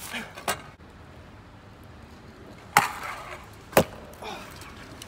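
MGP VX7 stunt scooter clacking down on asphalt during a trick: a small knock about half a second in, then two loud sharp impacts of deck and wheels about a second apart, with a rough rolling sound between them.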